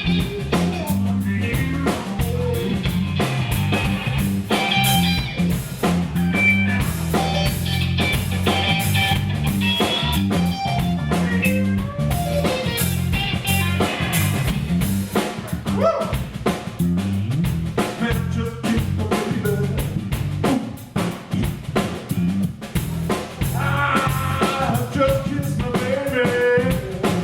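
Live blues band playing an instrumental break: a guitar lead line over bass and a steady drum-kit beat.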